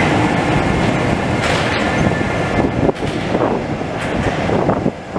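Paris Métro train running past in a tunnel, its wheels and cars clattering over the track; the noise drops somewhat about three seconds in.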